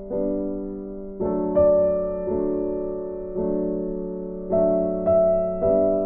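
Background music of soft, slow piano chords, struck about once a second and each left to fade.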